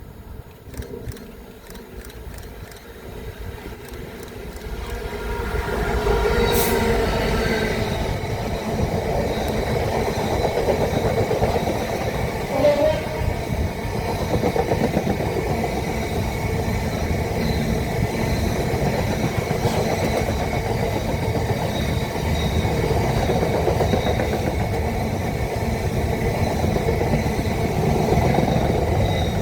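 A train running past on the line: the rail noise builds over the first five or six seconds, then holds as a steady loud rush of wheels on track.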